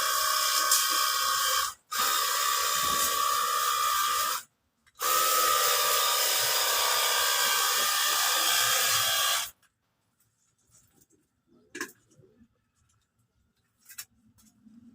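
Battery-powered pressure washer running and spraying water: a steady hiss with a motor whine. It cuts out twice briefly and stops about nine and a half seconds in, followed by a couple of faint clicks.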